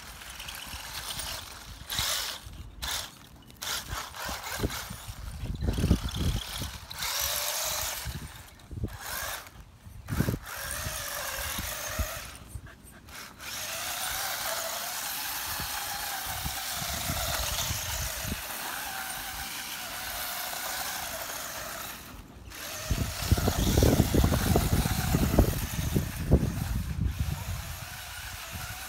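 Electric motor of a radio-controlled toy buggy whining in repeated bursts with short breaks as it is driven across grass, then running steadily for several seconds. Heavy low rumbling takes over for a few seconds near the end.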